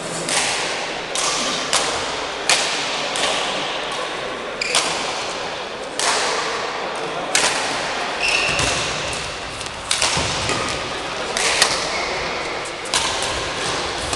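Badminton rackets striking a shuttlecock in a doubles rally: a string of sharp cracks about once a second at an irregular pace, each ringing on in a large hall. A brief high squeak comes a little past the middle.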